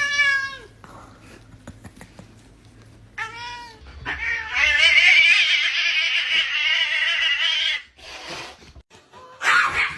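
Domestic cat meowing: a short falling meow, a second short meow about three seconds in, then one long, loud, wavering yowl of about four seconds.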